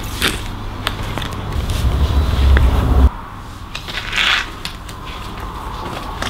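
Dense low rumble with crackling and clicks that cuts off abruptly about three seconds in, followed by quieter rustling and handling clicks with a brief hiss of rustle near the middle.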